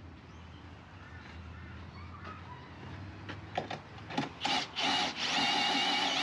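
Cordless drill driving a slide-on camper's jack leg to raise or lower the camper. It gives a few short blips about three and a half to five seconds in, then runs steadily with a whine.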